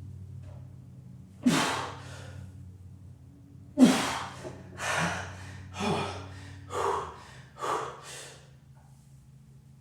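Heavy, forceful breathing of a lifter straining through a set of Romanian deadlifts: sharp gasping breaths, a few seconds apart at first, then coming about once a second in the second half.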